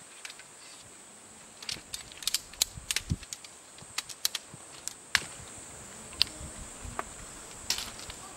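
Sharp clicks and clacks of a folding camp chair's shock-corded pole sections being snapped into their hub and handled, about ten separate clicks with a duller knock about three seconds in. A faint steady high tone sounds throughout.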